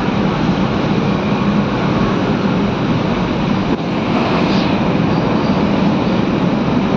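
Container freight train passing close by: a steady, loud rumble of loaded flat wagons rolling on the rails, with a brief, faint higher-pitched screech a little after four seconds in.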